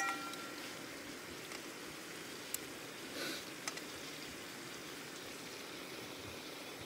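Steady hiss from a frying pan on a camping gas stove, with a sharp, ringing metal clink at the start and a few light clicks and a rustle of handling.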